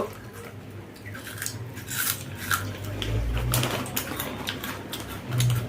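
People eating: a scatter of small, sharp clicks and crunches from food and dishes being handled and chewed.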